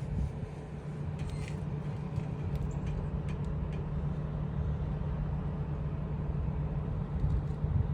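Diesel truck engine idling steadily, with a few faint clicks over the top.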